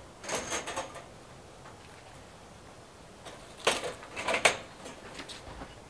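Hands working at a wire-mesh rabbit cage, pushing in fresh greens: short clusters of rattling and rustling, once just after the start and again about three and a half seconds in.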